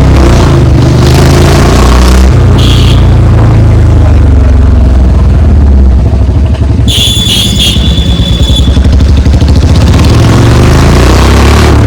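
Royal Enfield Bullet 350's single-cylinder engine running loud through a bend-pipe exhaust while riding. The engine note shifts about two seconds in. Past the middle the throttle eases off and the separate exhaust beats come through, before it picks up again.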